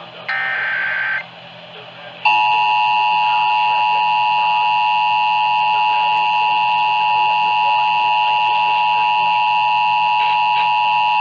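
Emergency Alert System tones over AM radio. A short, screechy burst of the EAS header data, the last of its repeats, is followed about a second later by the steady two-tone attention signal, which begins and holds loud and unchanging. Together they announce an emergency alert activation for a severe thunderstorm warning.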